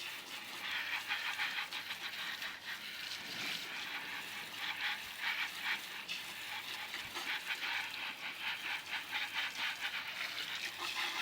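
Running water spraying and splashing over a submersible drainage pump as it is rinsed clean, a steady hissing spatter that cuts off suddenly at the end.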